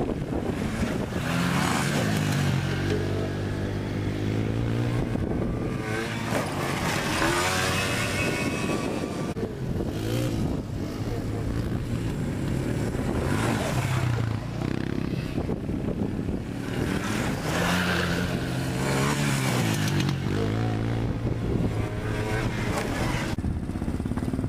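Small youth ATV engines revving up and down as the quads ride over sand, their pitch rising and falling several times.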